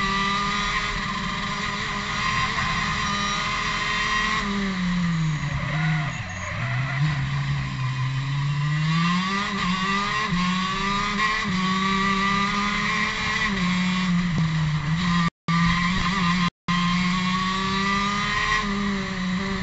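Two-stroke racing kart engine at high revs, heard from on board the kart. It drops in pitch as the kart slows for a corner about four seconds in, then winds back up, with a smaller dip later. The sound cuts out twice for a split second near the end.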